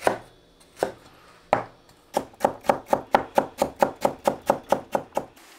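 Kitchen knife chopping celery on a cutting board: three slow, separate chops, then a fast, even run of about seven chops a second from about two seconds in until shortly before the end.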